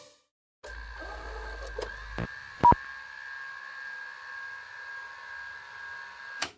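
Electronic logo sting: a steady high electronic hum like radio static or a dial tone, with a low rumble and a few sharp clicks in the first couple of seconds, the loudest about two and a half seconds in, and a short crackle near the end.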